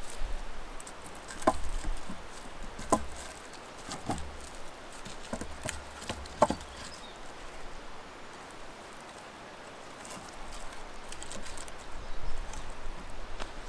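About five short, sharp knocks, irregularly spaced a second or so apart, each with a brief ring, over a low rumble.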